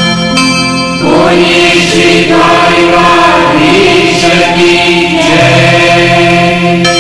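Gujarati devotional hymn (shayan stuti) sung by voices in a chanting style, the melody wavering and drawn out over a steady held drone.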